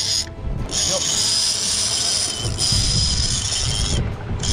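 Big-game conventional fishing reel being cranked hard against a heavy fish, its gears whirring steadily, with two short breaks in the cranking, about a third of a second in and again near the end.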